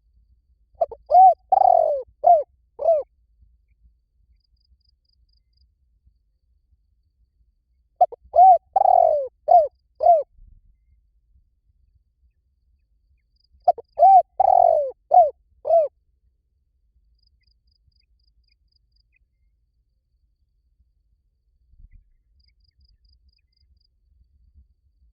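Spotted dove cooing: three phrases of about five low, arched coos each, several seconds apart. It is a lure call for training a captive dove to coo back.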